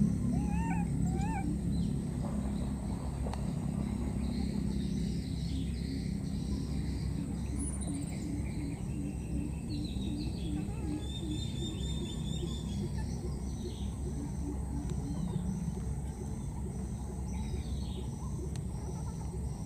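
Outdoor ambience: a steady low noise with birds chirping and trilling. Two short rising chirps come about a second in, and a run of quick high chirps comes near the end.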